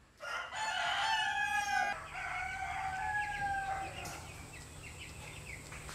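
A rooster crows: a loud call lasting nearly two seconds, then a second, weaker and slightly falling call that ends about four seconds in. Broiler chicks peep in short high chirps from about two seconds on.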